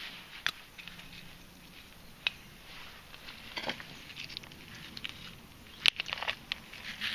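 Loose stones and gravel being disturbed: scattered sharp clicks and short scrapes, the loudest click about six seconds in.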